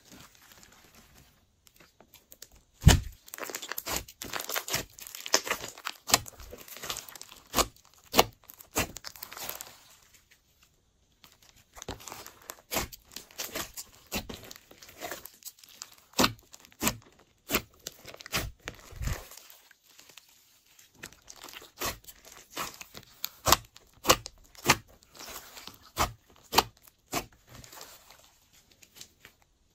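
Hands squeezing, stretching and folding a large mass of thick, glossy slime, making dense, irregular sharp pops and crackles, with a short pause about ten seconds in and another about twenty seconds in.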